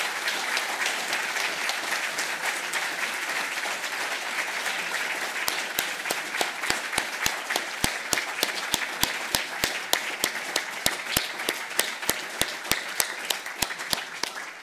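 Audience applauding at the end of a speech. From about five seconds in, loud, evenly spaced claps stand out above the applause, about three or four a second.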